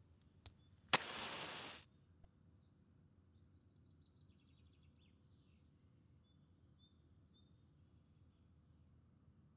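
A match struck on a matchbox about a second in, flaring with a hiss for just under a second. Faint birds chirp after it.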